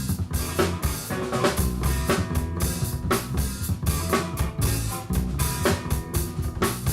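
A band playing live, with a drum kit keeping a steady beat of hits about twice a second over low bass notes.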